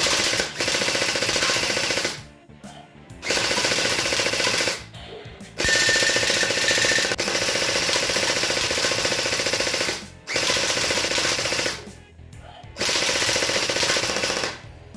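MK8 electric gel blaster firing on full auto, its motor and gearbox cycling rapidly, powered by an 11 V battery. It fires in five bursts with short pauses between them, the longest lasting about four seconds in the middle.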